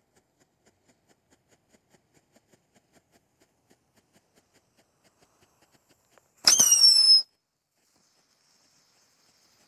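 Night Cat fountain firework: faint regular ticking, then about six seconds in a loud whistle lasting under a second, falling slightly in pitch over a crackle, as the mouth section fires its flame.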